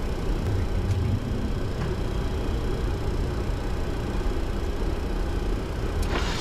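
Steady low rumble on the flight deck of a Boeing 737-200 taxiing, its Pratt & Whitney JT8D engines at idle, with a faint click near the end.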